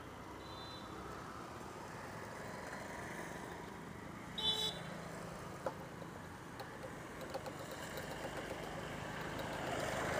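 Vehicle engines idling and passing traffic, slowly growing louder, with a short high-pitched tone about four and a half seconds in.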